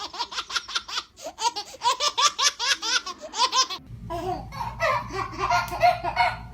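High-pitched laughter in quick repeated bursts. About four seconds in it cuts to lower laughing or vocalising over a steady low hum.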